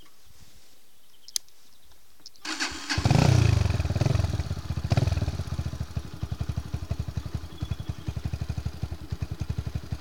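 Skymoto Bird 125 motorcycle's single-cylinder four-stroke 125 cc engine being started: a click, a brief cranking, then it catches about three seconds in, is revved up briefly, and settles into a steady, even idle.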